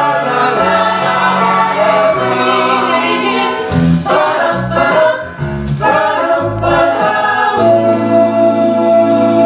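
A stage-musical cast singing together with band accompaniment, the closing number of the show. The last couple of seconds settle into a long held chord.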